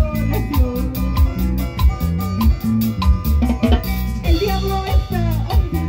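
Live band playing a Latin-style instrumental: Andean harp and electric bass over a drum kit keeping a steady beat.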